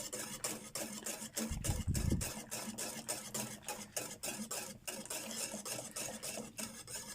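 Hand wire whisk stirring milk and cornstarch in a metal pot as the cream thickens, in quick rhythmic strokes several a second. A low thud comes about one and a half seconds in.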